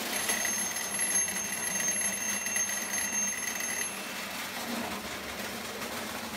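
Electric crossing warning bell on a prewar Lionel tinplate layout ringing continuously for about four seconds and then stopping, over the steady running noise of a toy train on the track.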